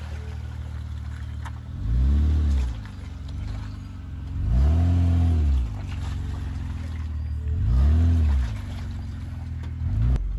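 Honda Ridgeline pickup's V6 engine driving through thick mud, revving up and dropping back three times with a short fourth rev near the end.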